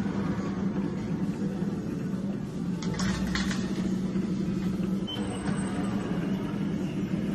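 Steady mechanical hum of a commercial bakery cabinet's fan running, with a few short metallic clatters about three seconds in as a baking tray is slid onto the metal rack.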